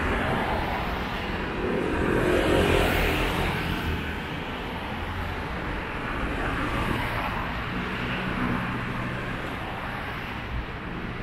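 Light traffic on a wide city boulevard: a car passes close by, swelling louder and fading about two to four seconds in, over a steady hum of distant traffic.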